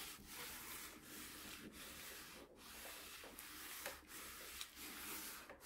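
A clothes iron sliding back and forth over a sheet of parchment paper: a faint, dry rubbing in repeated strokes.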